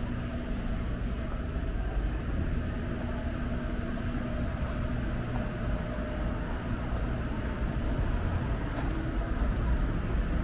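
City street traffic: cars running and passing in a steady rumble, with an engine hum through roughly the first half.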